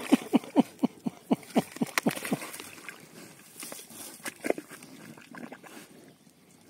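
Pig grunting in a quick run of short grunts, about four a second, that stops about two and a half seconds in, with one more grunt a couple of seconds later; water sloshing underneath.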